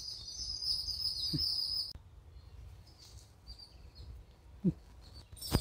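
Birds chirping in a high, continuous trill that stops abruptly about two seconds in, then quiet garden ambience. A short sharp click comes near the end.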